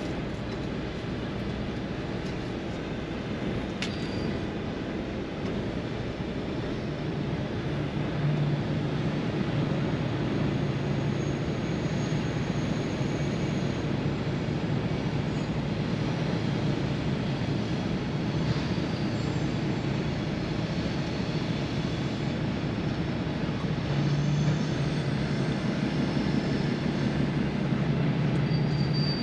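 A truck's diesel engine heard from inside the cab, pulling at low speed. It is a steady drone with a low hum that grows louder about 8 seconds in and again near the end.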